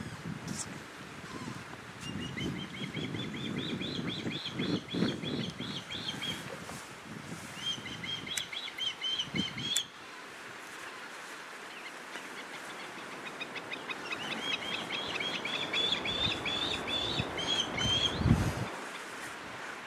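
Osprey fledgling begging calls: three bouts of fast, high chirps, about five a second, each bout lasting a few seconds. A low rumble runs under the calls, and a low thump comes near the end.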